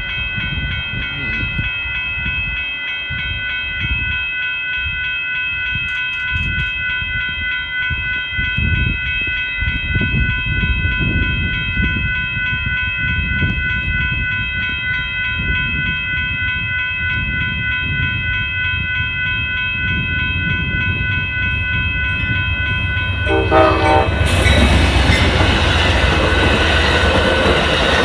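Amtrak Texas Eagle passenger train approaching, its horn sounding a long steady chord over a low rumble. About 24 seconds in the train reaches the microphone and the loud rush and clatter of the passing locomotive and cars takes over.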